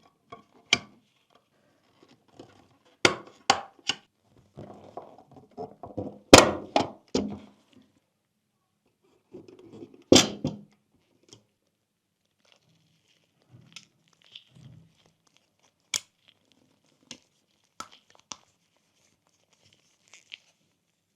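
Small hard parts of a scale model car being handled, tapped and set down on a work surface. It is an irregular series of sharp clicks and knocks, the loudest about six and ten seconds in, with light rustling and scraping between them.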